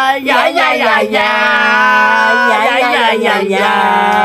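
A single voice singing long, drawn-out, wavering notes, each held for a second or more with short breaks between.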